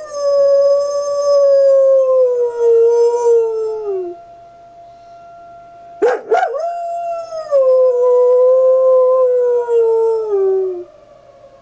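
German Shepherd howling twice, two long howls that each slide slowly down in pitch, the second starting with a quick rise. Under and between the howls is the faint steady tone of the fire whistle that she is howling at.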